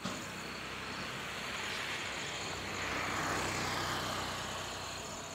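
Steady motor-vehicle engine noise with a hiss that swells about halfway through and eases off.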